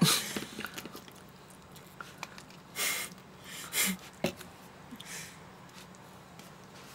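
Mostly quiet room tone. A few short rustling scrapes and light clicks come from a knife cutting through food in a plastic tray, and from a plastic water bottle being handled, about three and four and five seconds in.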